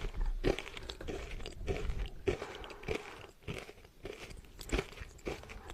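Close-up chewing of a crystal candy: crisp crunches about every half second, easing off briefly in the middle before picking up again. The candy is extremely crunchy.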